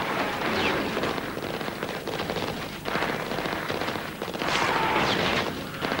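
Automatic rifle firing in long rapid bursts, broken by a few brief pauses.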